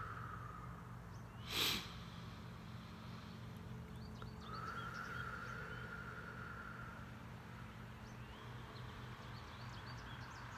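Slow, deep breaths, with two long exhales a few seconds apart during a mindful breathing exercise. A brief loud noise burst comes about one and a half seconds in, and faint bird chirps sound in the background.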